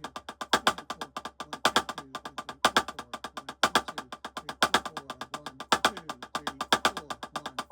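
Snare drum played with sticks: a steady run of quiet taps, about ten strokes a second, broken about once a second by two loud accented strokes in a row. This is a rudiment exercise with an extra accent added after each standard accent.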